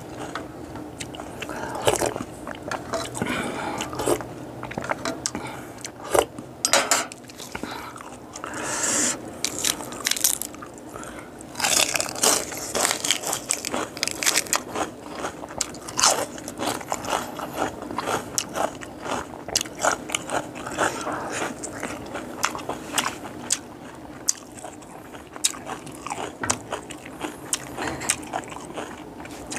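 Close-miked chewing and biting with repeated crunches, as a mouthful of boiled rain frogs and their small bones is eaten, with wet mouth clicks between the bites.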